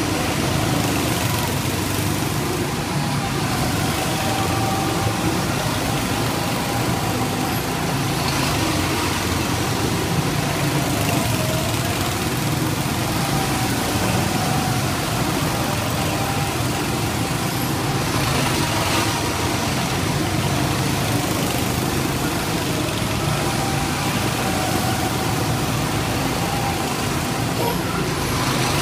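Several go-kart engines running together in a steady drone, their notes rising and falling slightly as karts drive past.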